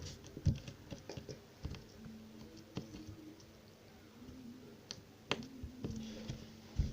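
Irregular small clicks, taps and sticky pops of glue-and-borax slime being handled, with a sharper snap about five seconds in.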